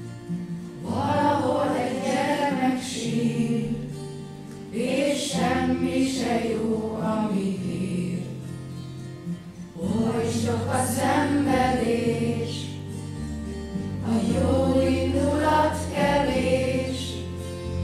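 Group of voices singing a slow song in long phrases, over held low accompanying notes.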